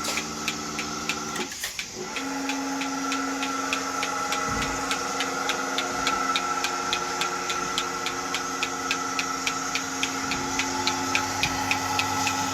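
Milking machine running: a steady motor hum with the fast, regular clicking of the pulsator. The hum changes pitch about two seconds in.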